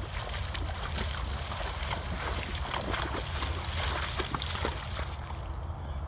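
A horse wading through shallow standing water, its hooves and legs splashing and sloshing in a string of irregular splashes.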